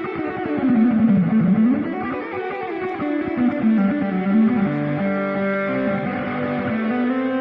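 Electric guitar played through a Ring Boost Ranger booster pedal: a fast run of picked notes sweeping down and back up, then ringing, held notes.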